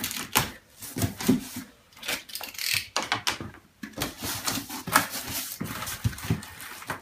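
A cardboard shipping box being opened by hand: flaps scraping and folding back, with irregular knocks and rustling from the foam packing and a plastic parts bag inside.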